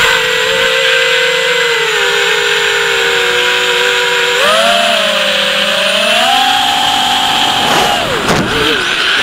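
Whine of a ZMR250 quadcopter race drone's four Racerstar 2204 2300KV brushless motors on 5045 propellers, heard from the onboard camera. The pitch rises as the throttle comes up about halfway through. Near the end it drops sharply and climbs straight back, as in a throttle chop and punch.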